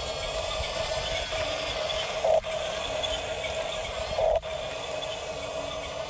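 Electric drive motors and gearboxes of an RC bulldozer whining steadily as it crawls on its tracks. There are two brief louder surges, about two and four seconds in, each cutting off sharply.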